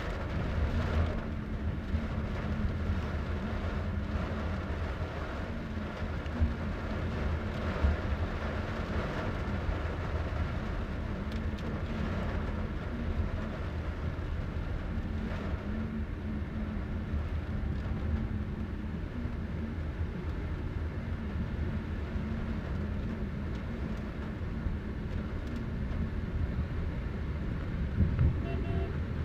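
A car's engine and tyres make a steady low rumble, heard from inside the moving car's cabin, with a faint steady hum and a few light knocks.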